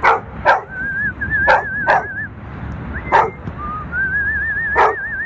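Xoloitzcuintli barking six short, sharp times, spread unevenly, over a person whistling a few wavering, warbling notes. The longest whistled note begins near the end. A low, steady rumble of rain and city runs underneath.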